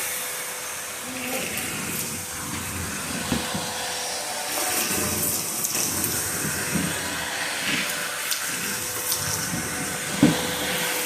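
Hoover garage utility vacuum running: a steady airy hiss with a constant hum tone, with scattered light knocks and a sharper knock about ten seconds in.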